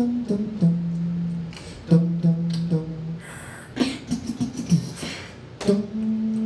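Beatboxing into a handheld microphone: held, hummed bass notes that step between a few pitches, broken by clicks and percussive mouth sounds, with a short hissing burst about three seconds in.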